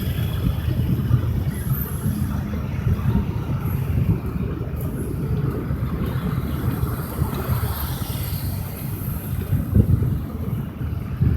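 Interstate highway traffic, trucks and cars passing: a steady low rumble of engines and tyres.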